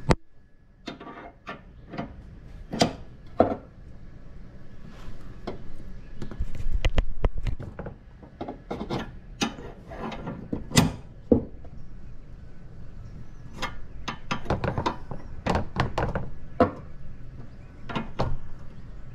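Irregular metal clinks and knocks of a wrench and 24 mm socket being fitted to and worked on the bolt of a ball joint separator tool under the car's front suspension, with a few quick clicking runs.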